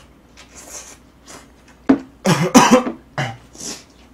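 A man coughing a few times in quick hard bursts a little past the middle, with a short throat-clearing burst just after.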